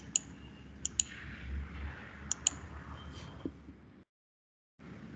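Computer mouse clicks: about five short sharp clicks, some in quick pairs, as lines are picked and erased in a CAD program, over faint room hiss that cuts out about four seconds in.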